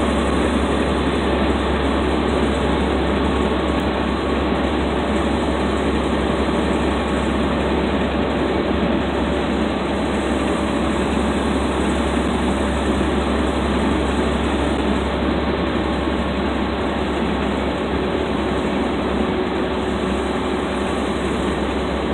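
Steady road and engine noise inside a vehicle's cabin at highway speed, with the windows up.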